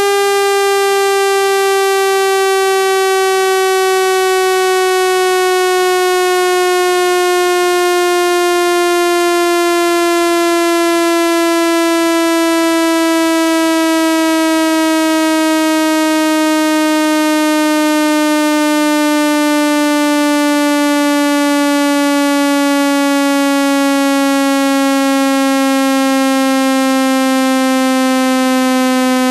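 Synthesized speaker-cleaning tone, a loud, buzzy tone that slides slowly and steadily lower in pitch. It is a frequency sweep meant to vibrate water and dust out of a phone speaker.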